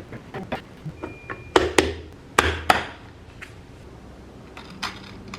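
Kitchen handling noise: a series of sharp knocks and clatter from utensils and containers, loudest in four hard knocks around the middle. A short high beep sounds about a second in.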